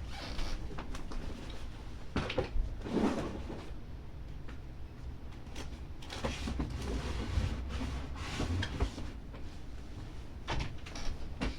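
Scattered knocks, clicks and rustling of someone moving about and handling things away from the microphone, like cupboard or closet doors and boxes being moved while shoes are fetched.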